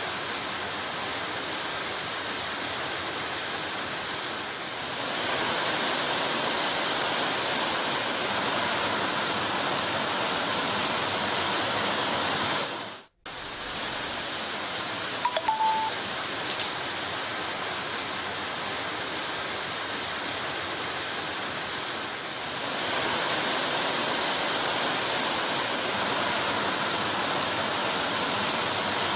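Heavy rain falling steadily on trees and plants, an even hiss of downpour. It cuts out for a moment about 13 seconds in, then resumes.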